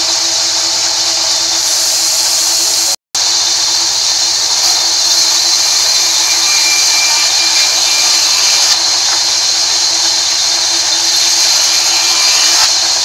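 Sawmill band saw running and ripping rain tree planks: a steady, high-pitched hiss of the blade cutting through the wood. It drops out briefly about three seconds in.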